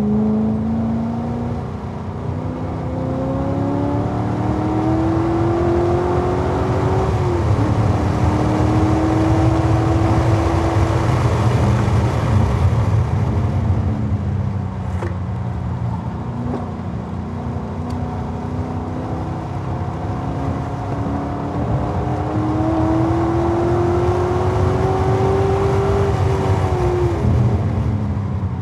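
2011 Corvette Z06's 7.0-litre LS7 V8 driven hard on a road course. Its pitch climbs through a gear and snaps down at an upshift about seven seconds in, then falls away as the car slows in the middle. It climbs again to a peak and drops as the car slows near the end.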